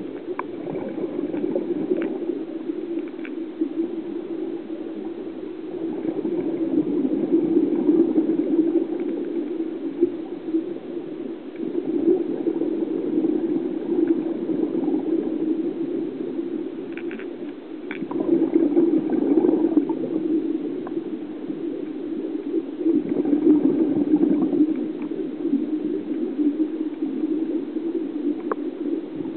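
Underwater bubbling from a scuba diver's regulator, the exhaled bubbles gurgling and swelling then fading about every five to six seconds in a breathing rhythm, with a few faint clicks.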